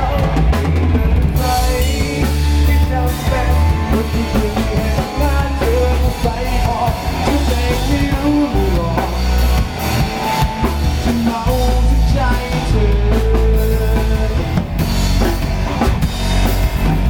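Instrumental break of a band song: a drum kit keeps a steady beat under bass and melodic instrument lines, with no singing.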